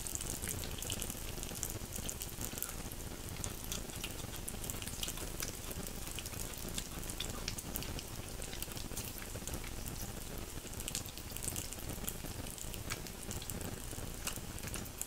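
Pork belly sizzling on a round electric grill pan: a steady hiss with frequent little pops and crackles of spitting fat.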